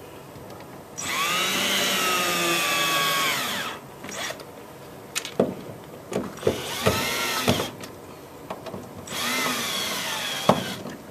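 Milwaukee V18 cordless drill driving mounting screws: three runs of motor whirring, a long one about a second in and two shorter ones later, the first run's pitch falling near its end, with small clicks between runs.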